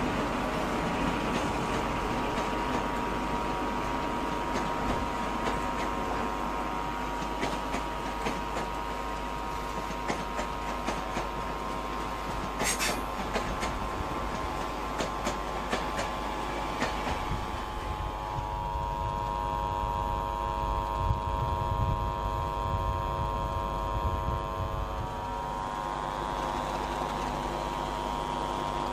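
Train wheels clicking over rail joints as a train moves through the station. From a little past halfway a steady multi-toned engine drone with a low rumble builds as another train, a Stadler FLIRT unit, rolls along the tracks.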